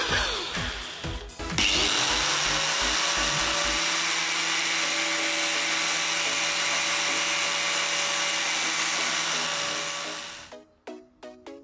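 Angle grinder running with a copper rod held against its spinning disc, grinding the rod's tip to a point for a spot-welder electrode. It starts abruptly about a second and a half in, runs steadily and loudly for about nine seconds, and cuts off near the end.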